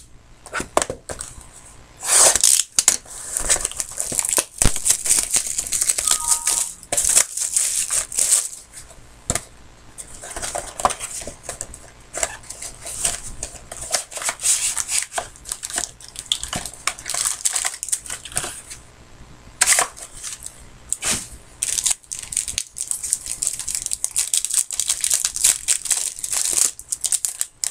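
Trading card packaging being opened by hand: repeated crinkling and tearing of wrappers, with irregular rustles and small clicks throughout.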